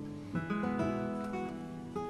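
Background music of plucked and strummed acoustic guitar, a new chord struck about a third of a second in.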